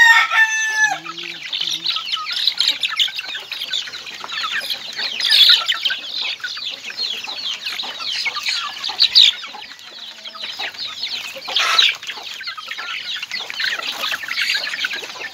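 A flock of native chickens clucking and peeping continuously while they feed, with a rooster's crow trailing off in the first second.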